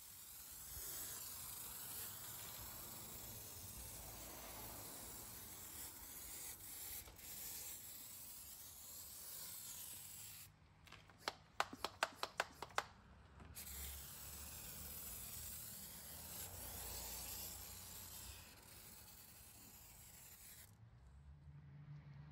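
Kwazar Venus pump-up foam sprayer hissing steadily as it sprays foam. About halfway the spray breaks off for a quick run of sharp clicks, then hisses again until it stops shortly before the end.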